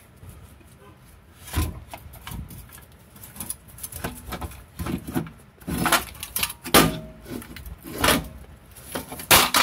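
BMW E46 exhaust manifold with its built-in catalytic converter being worked loose and pulled out from under the car: irregular metal clunks, knocks and scraping as it bumps against the underbody and the wood blocks, the loudest knocks about 1.5 s in and several more in the second half.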